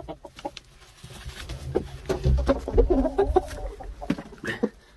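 A game chicken clucking, a wavering run of calls from about two seconds in lasting over a second, with scattered knocks and a low rumble from the camera being handled.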